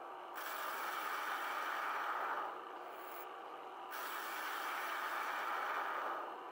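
Metal lathe turning a metal bar, the tool bit cutting and shedding fine chips: a steady cutting noise that comes on twice, from about half a second to two and a half seconds and again from about four to six seconds, with the quieter running of the lathe between the cuts.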